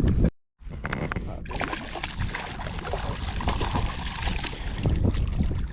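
Steady rushing water noise around a fishing boat, with low rumble and some splashing, after a brief dropout to silence a fraction of a second in.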